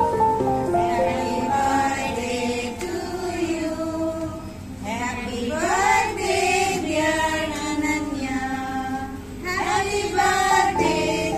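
Music with voices singing a melody, choir-like, over held instrumental notes.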